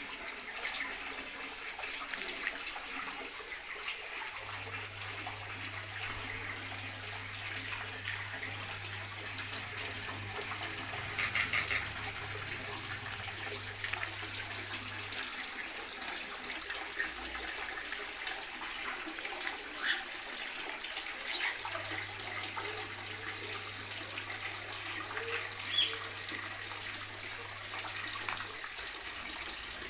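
Caged birds in an aviary giving a few short, scattered chirps over a steady rushing noise like running water. A faint low hum comes in twice and stops again.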